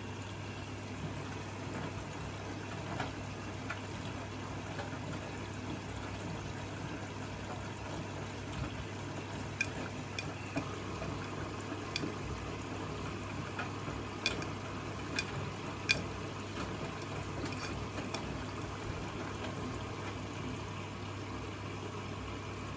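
Siemens washing machine running a wash: water running and sloshing in the drum over a steady low hum, with a few light clicks in the middle stretch.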